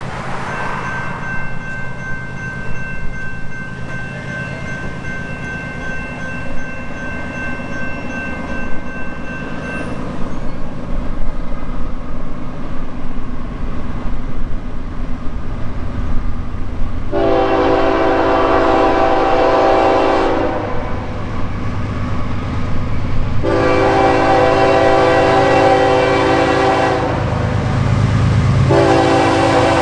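Norfolk Southern GE ES44AC diesel locomotive approaching at the head of a freight train and sounding its air horn: two long blasts and then a short one in the second half, the pattern of a grade-crossing warning. The engine and rail rumble grow louder as it nears.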